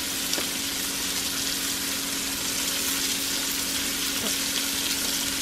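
Sliced sausage sizzling in a hot frying pan: a steady, even hiss.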